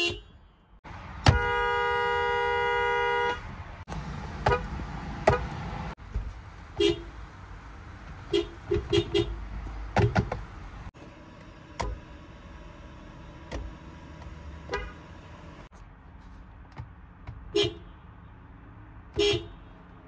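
Toyota Highlander car horns: one steady blast of about two seconds, then a string of short toots from quick taps on the horn pad, at uneven spacing.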